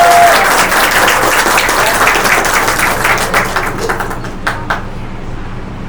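Audience applauding, dense clapping that thins out to a few last claps and stops after about four and a half seconds.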